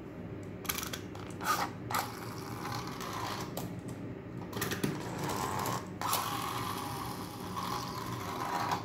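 Small plastic toy mechanism clicking and whirring as a plastic owl figure is handled. A few sharp plastic clicks come in the first two seconds, then longer stretches of a ratcheting, gear-like whirr.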